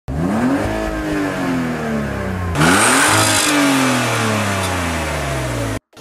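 BMW car engine revved twice while parked: each time the revs rise quickly and then fall away slowly, the second blip coming about two and a half seconds in. The sound cuts off abruptly near the end.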